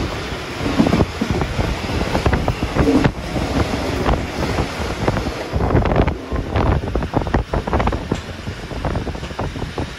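Wind buffeting the microphone over the steady rumble of a moving railway carriage, with frequent irregular knocks and rattles from the running gear and bodywork.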